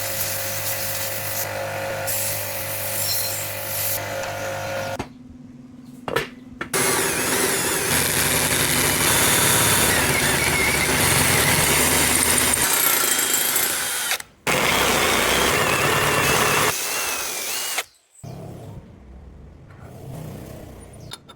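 Electric power tools running in several short cuts: first a steady motor whine, then a louder, harsher run of grinding or cutting, broken off briefly once, before it drops away near the end.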